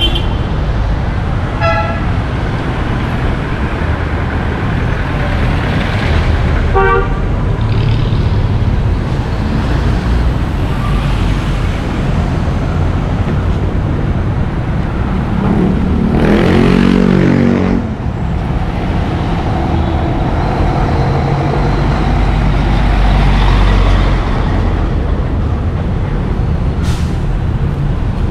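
Busy road traffic running steadily, with two short vehicle horn toots, one about two seconds in and another about five seconds later. Just past halfway a vehicle engine passes close and louder for a couple of seconds.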